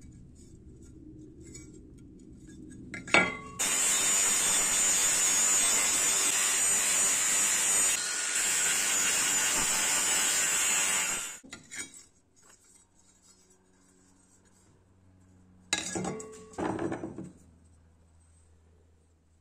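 Angle grinder with an abrasive disc grinding rust off a cut steel shovel blade. It runs as a steady, high-pitched grind for about seven seconds, starting just after a sharp metallic clank. Near the end come a few short clinks of steel pieces being handled.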